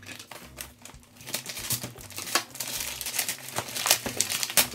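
Brown kraft-paper parcel wrapping crinkling and rustling in irregular crackles as the package is handled and cut open with scissors, busier and louder in the second half.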